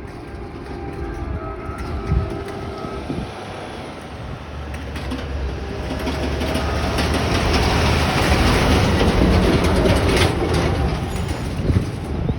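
Amtrak Blue Water passenger train's diesel locomotive and cars passing, with a low engine hum and rushing wheel noise on the rails that build to their loudest about eight seconds in.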